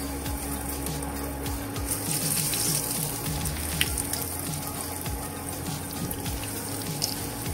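Flour-dredged oxtail pieces frying in hot oil in a non-stick pan: a steady sizzle that swells about two seconds in as another piece is laid in. A few light clicks of metal tongs come through the sizzle.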